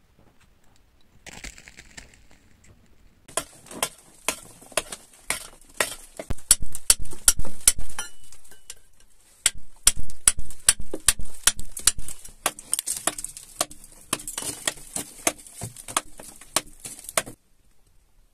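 Small metal-headed hammer striking and chipping soft white rock, an irregular run of sharp knocks, about three or four a second, that starts about three seconds in, pauses briefly just past the middle and stops shortly before the end.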